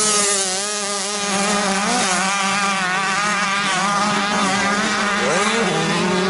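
Several 65cc two-stroke youth motocross bikes racing, their engines buzzing with pitch wavering as the riders work the throttle over a steady low drone. About five seconds in, one engine revs up with a rising pitch.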